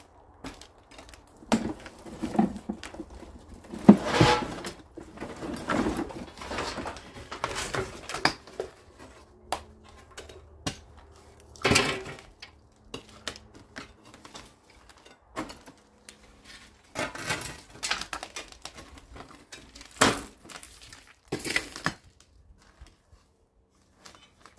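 Irregular clattering, knocking and scraping as old brooms, shovels and other junk are picked up, moved and dropped, with a few sharper bangs scattered through.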